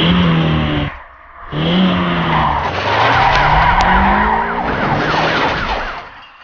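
Car chase sound effects: a car engine revving up with tyres screeching, a brief break about a second in, then more revving and a fast-wavering police siren over tyre noise, fading out near the end.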